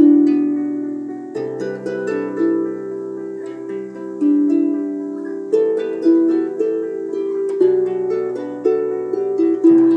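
Harp playing a slow, gentle melody: plucked notes that ring and fade, over lower bass notes, with a new phrase every second or two.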